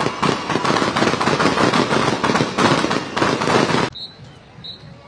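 A string of firecrackers going off in a rapid, dense crackle of sharp pops that cuts off abruptly about four seconds in. Two faint, short high beeps follow.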